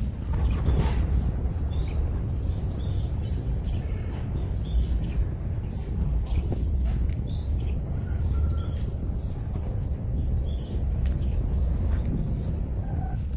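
Outdoor rural ambience: a steady low rumble with scattered short bird chirps and a thin, steady high-pitched whine.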